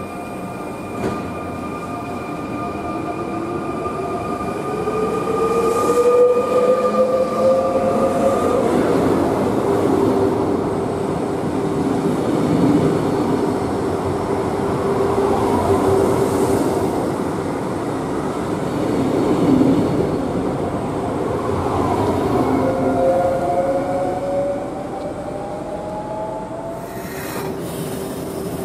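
SNCF Z 26500 double-deck electric multiple unit (TER 2N NG) moving off: its traction motors whine, rising in pitch as it gathers speed, over the rumble of wheels on rail as the cars pass. A second rising whine comes near the end.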